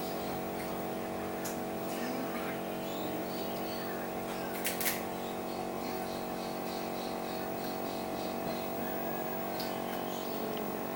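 A steady mechanical hum made of many steady tones, with a sharp click about halfway through.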